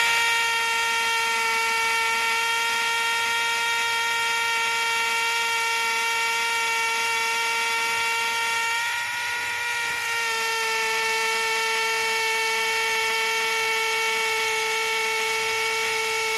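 Electric drill running at steady speed with a high whine, boring a marker hole out through the brick wall. The whine drops a little in pitch and level about nine seconds in, then steadies again.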